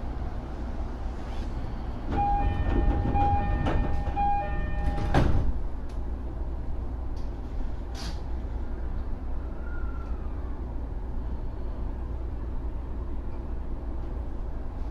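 E231 series electric train with its doors closing: a door-closing chime beeps in repeated pulses for about three seconds and ends in a loud thump as the doors shut. A steady low rumble runs underneath, with a single click a few seconds later.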